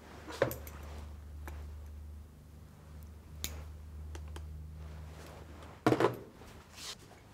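Several light knocks and clicks of things being handled, the loudest a quick double knock about six seconds in, over a low steady hum.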